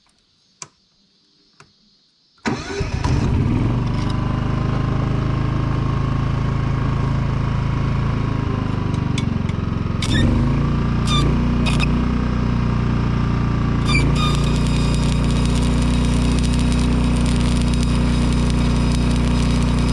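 Denyo engine-driven welder's engine comes in suddenly about two seconds in and runs steadily. From about ten seconds in, a stick-welding arc is struck with a few sharp cracks and then burns with a continuous sizzle. The engine note shifts as it takes the welding load.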